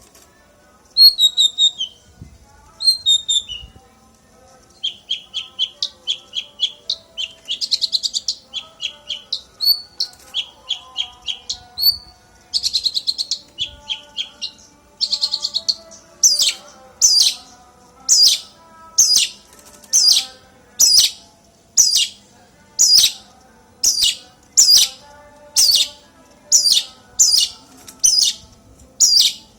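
Songbird singing: varied chirps and rapid trills, then from about halfway a loud, sharp down-slurred note repeated about once a second.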